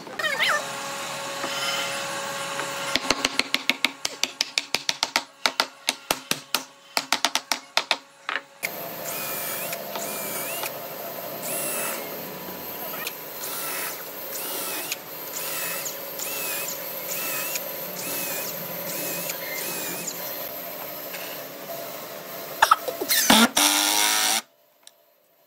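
Cordless drill and impact driver working screws into wood. It starts with a quick run of sharp clicks and taps for about eight seconds, then a steady drill whir, then a loud burst just before the sound cuts off suddenly.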